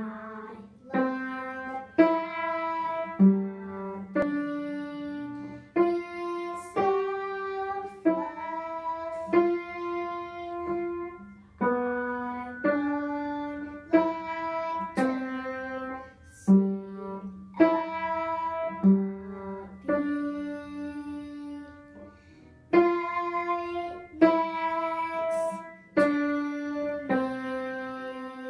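Upright piano played by a young student: a simple, slow melody, mostly one note at a time at about one note a second, each note struck and left to ring.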